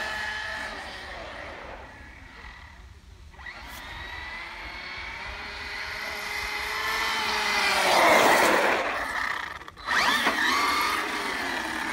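ARRMA Notorious 6S brushless electric RC monster truck running, a motor and gear whine. It fades as the truck drives off, swells loudest as it comes close about eight seconds in, and picks up again with a rising whine after a sudden break near ten seconds.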